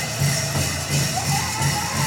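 Powwow drum and singers: a big drum struck in a steady beat under a singer's high held note that comes in about a second in. Dancers' bells jingle along with the beat.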